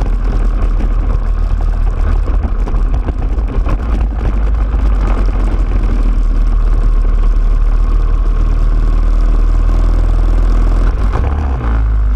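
Racing kart engine running, heard from on board the kart as it drives; the sound eases briefly near the end as the kart slows and stops.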